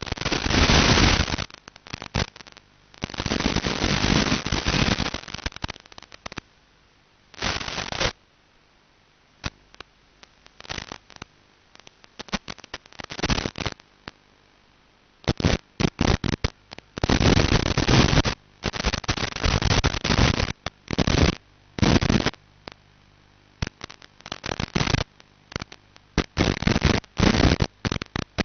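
Crackling bursts of static from an analog FPV video link's audio channel, cutting in and out irregularly as the radio signal breaks up, with long stretches of near-continuous crackle in the second half.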